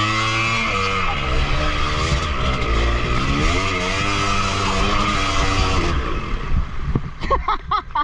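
Two-stroke dirt bike engine revving, its pitch rising and falling in repeated waves. It drops away about six seconds in, and short bursts of voice follow near the end.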